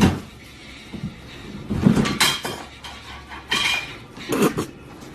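Irregular clattering knocks, several over a few seconds, one with a short ringing clink, like hard household objects being knocked about.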